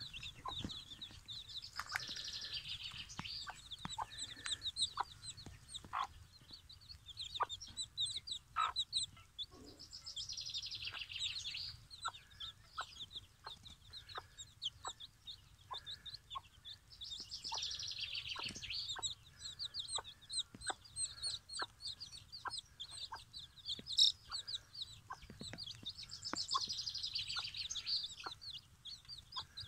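A mother hen clucking softly while her chicks peep continuously. The peeps are short, high calls, with four longer bursts of rapid high calling spaced about eight seconds apart.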